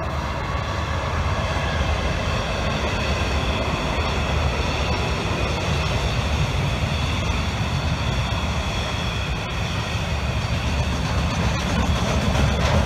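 Grain train passing at speed behind an Aurizon ACN-class diesel locomotive: a steady rumble of wagons rolling on the rails, growing a little louder near the end.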